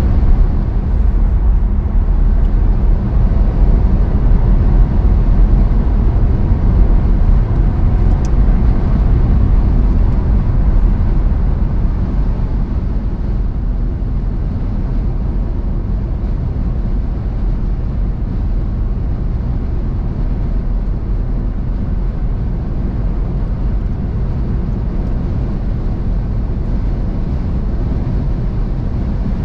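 Car cruising at motorway speed: a steady rumble of tyres and road with engine hum, easing to a little quieter partway through.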